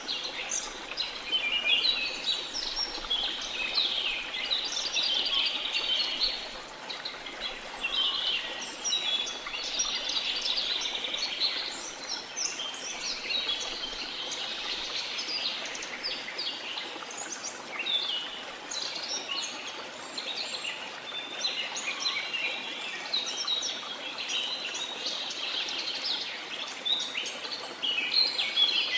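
A dense chorus of many birds chirping, trilling and calling over one another throughout, over a steady rush of waterfall water.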